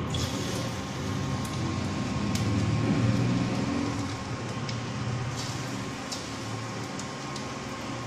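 Hot oil sizzling in a kadai as spoonfuls of bottle gourd and gram flour batter are dropped in to fry as pakoras, over the steady hum of an induction cooktop. The sound swells about three seconds in.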